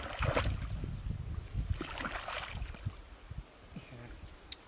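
Muddy water sloshing and splashing as a man wades and gropes by hand through flooded grass in the shallows, in a few splashy spells that grow quieter near the end.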